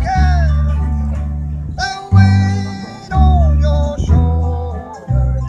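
Live folk song: a voice singing held, gliding notes over strummed guitar and a deep bass line that steps to a new note about once a second.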